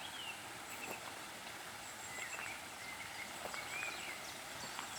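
Birds singing in short chirps over a steady hiss of flowing water, with faint footsteps on an uneven garden path.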